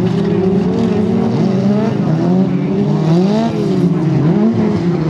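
Several folk-race car engines running on a dirt track, their pitch rising and falling as they rev and ease off in turn.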